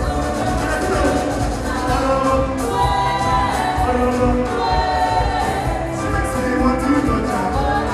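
Live music with several voices singing over a steady, driving beat.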